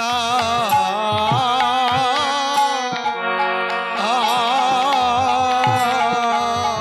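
Bengali kirtan music: a wavering, ornamented melody over steady keyboard chords, with deep drum strokes that drop in pitch.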